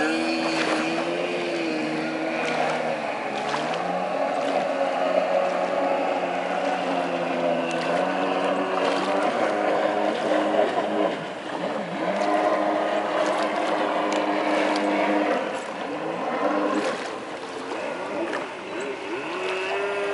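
Kawasaki X2 personal watercraft's two-stroke engine running at speed, its pitch rising and falling as the throttle changes, over a steady rushing noise. It drops off briefly twice, about halfway through and again near the end.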